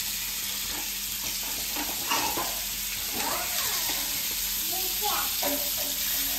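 Masala-coated pearl spot fish sizzling in hot oil in a frying pan, with a metal spatula scraping and turning the fish over. The sizzle is steady.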